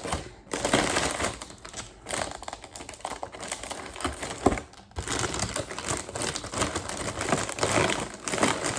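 Plastic packaging crinkling and rustling with many light clicks and taps as a Gundam model kit's bagged plastic runners and box are handled, with brief lulls about two and five seconds in.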